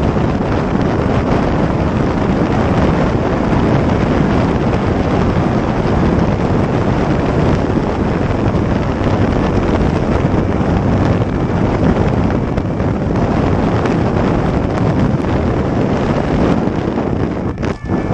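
Loud, steady wind rush over a helmet-mounted camera's microphone on a motorcycle travelling at high speed, with the motorcycle's engine mixed into the noise. There is a brief dip near the end.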